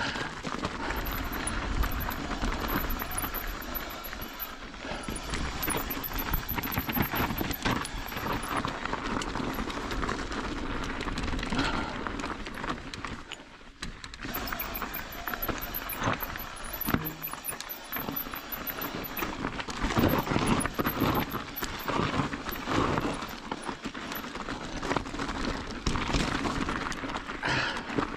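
Mountain bike rolling over rocky, gravelly trail: tyres crunching and the bike rattling and clattering over bumps, with wind rumbling on the microphone.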